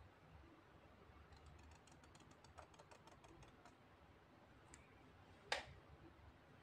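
Faint scratching of a bamboo calligraphy pen on paper as ink strokes are drawn: a quick run of fine ticks in the middle, then one sharp click near the end.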